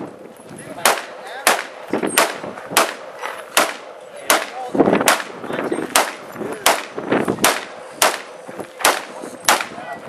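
A scoped semi-automatic rifle fired rapidly in a steady string of about fourteen shots, roughly one every two-thirds of a second, each with a short ringing echo.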